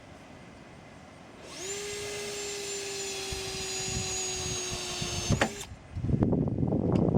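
Power drill motor spinning with a steady whine for about four seconds, its pitch sagging slightly, stopping with a click. About six seconds in, a louder, rough rattling run starts as the drill works screws into wood framing.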